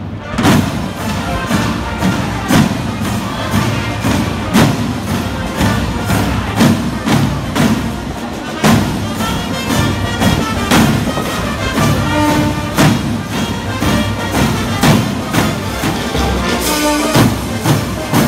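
Marching band playing in the street: massed drums beating a steady march rhythm, with brass playing along and holding a few longer notes.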